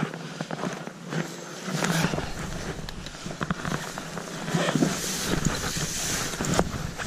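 Wind buffeting the microphone, with a deep rumble setting in about two seconds in, over rustling and sharp knocks while a hooked pike is wrestled out of the water.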